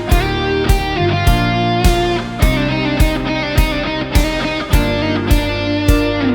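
Background music: an instrumental with guitar over a steady beat, about one stroke every 0.6 seconds.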